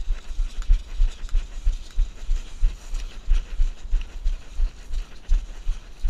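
Footsteps and body jolts of a person running with the camera on them, a rhythm of dull thuds about three a second.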